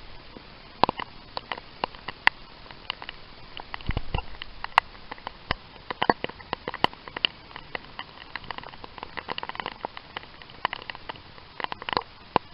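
Raindrops tapping irregularly and sharply on a hard surface, a few to several hits a second over a faint hiss, with a short low thump about four seconds in.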